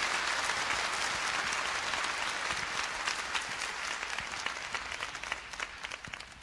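A concert audience applauding: dense clapping that thins out and fades toward the end.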